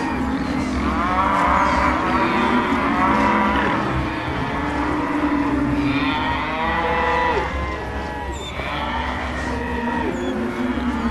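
Stomach growling: a continuous run of pitched gurgles and groans that bend up and down in pitch, several overlapping at once, a little quieter after about seven seconds.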